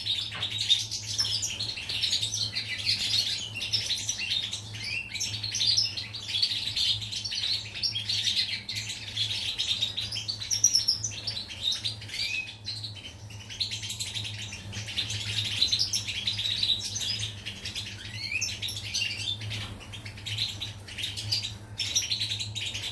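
European goldfinch singing a long run of rapid twittering chirps and trills, with a steady low hum underneath.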